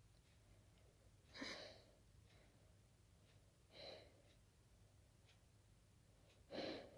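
A person stifling sneezes set off by dust and pollen: three short, breathy bursts about two and a half seconds apart, the first and last the loudest.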